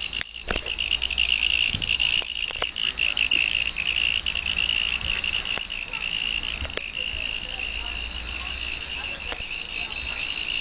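A chorus of insects trilling steadily at a high pitch, with a few sharp clicks scattered through it.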